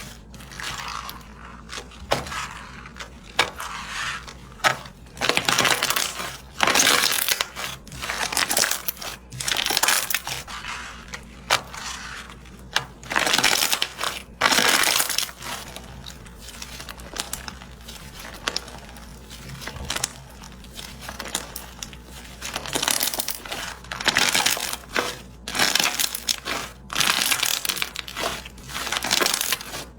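Slime being squished and worked, giving irregular bursts of crackling and popping every second or two.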